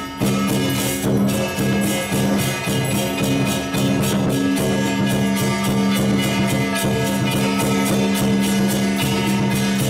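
Music accompanying a lion dance: a steady percussion beat over sustained held notes.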